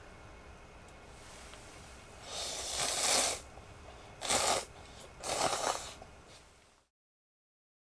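A person slurping hot food from a bowl: three short slurps, about a second apart.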